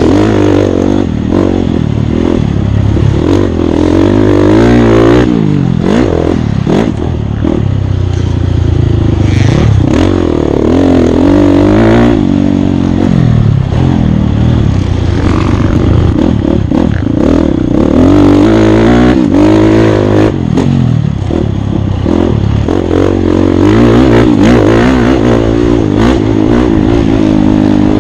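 Off-road dirt bike engine revving up and down again and again as it is ridden hard, pitch rising and falling every few seconds, with clatter and knocks from the bike over rough ground.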